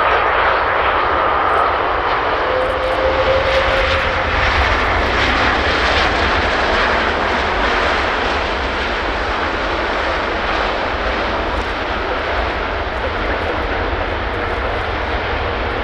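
Jet engines of an Airbus A330-300 airliner, its Rolls-Royce Trent 700 turbofans, making a steady rushing roar that slowly eases off.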